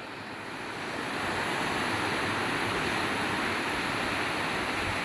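Ocean surf: a steady wash of breaking waves, swelling over the first second and then holding even.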